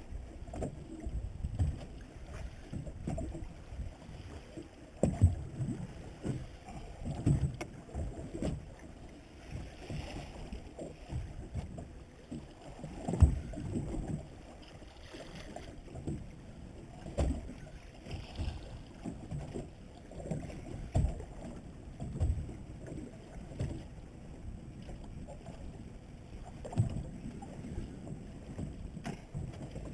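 Water slapping and sloshing against a small boat's hull in irregular low knocks.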